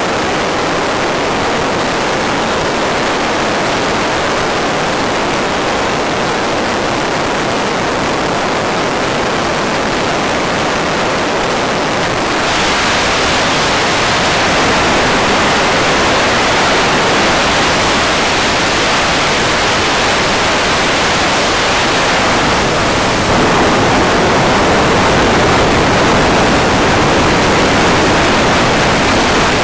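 Loud, steady hiss of radio static with no motor sound, typical of an analog FPV video receiver's audio channel. It steps up a little in level about twelve seconds in and again about two-thirds of the way through.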